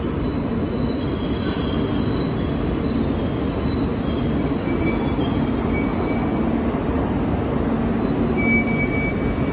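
E2 series Shinkansen train rolling slowly into the platform as it comes to a stop: a steady rumble with a thin high squeal over it for the first several seconds, and short higher squeals about five and eight and a half seconds in.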